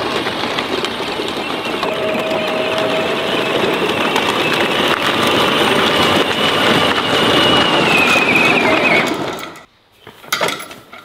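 Plastic wheels of children's pedal tractors and a small hay trailer crunching and rattling over gravel, with a thin high squeak running through it. The sound stops abruptly about nine and a half seconds in, leaving a few light knocks.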